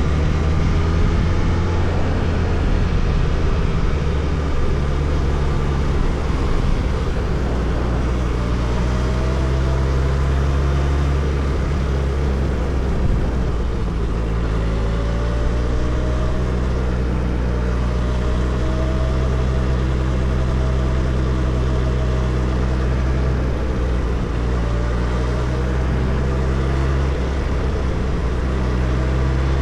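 Suzuki Hayabusa's inline-four engine running steadily on the move, its pitch rising in slow sweeps several times as the bike accelerates.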